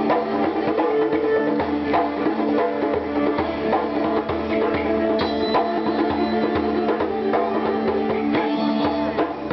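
Indian-style dance music: a quick hand-drum rhythm over a steady low drone.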